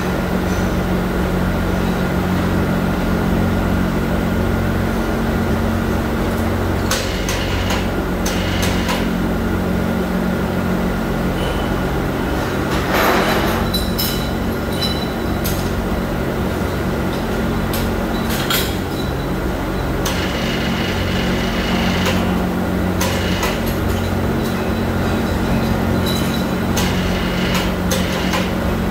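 Steady, loud hum of factory machinery with several steady tones, broken by intermittent metallic clanks and rattles of heavy steel mould-handling gear, the loudest a noisy clatter about halfway through.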